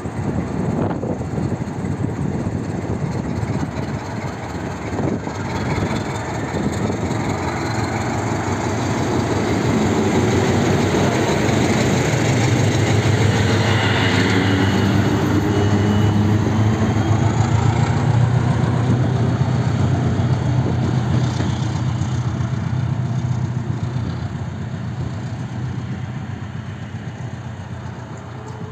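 SM31 diesel shunting locomotive running light past at close range: its diesel engine's steady running note grows louder to a peak about halfway through as it goes by, then fades as it moves away.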